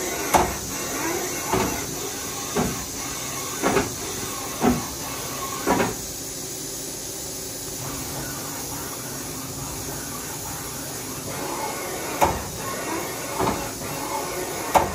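Fanuc Robodrill a-D21MiA CNC drill and tap center moving its table on rapid traverse, over a steady high hiss. A sharp clunk comes at each stop or reversal, about once a second for the first six seconds, then several quieter seconds, then clunks again near the end.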